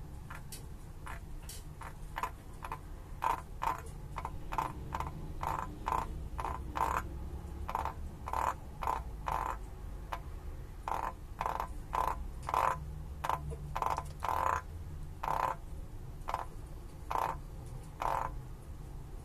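Male frog 'purring': a long series of short croaks, about two a second with brief pauses, given while a finger strokes its head.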